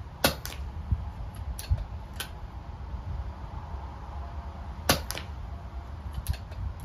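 Two shots from a Daystate Wolverine .177 pre-charged air rifle, one near the start and one about five seconds in, each a sharp crack followed about a quarter second later by a fainter crack. A few lighter clicks fall between the shots, over a steady low wind rumble on the microphone.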